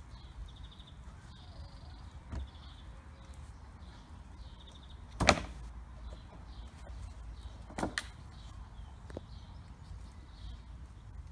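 Plastic sun lounger being handled and set down: a few short knocks, the loudest about five seconds in as it comes down, and another about eight seconds in as its backrest is moved.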